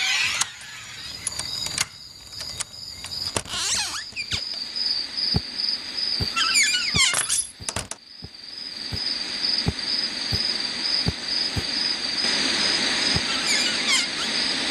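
Steady high chirring of night insects, with a short squealing creak about seven seconds in, then soft footsteps, about two a second.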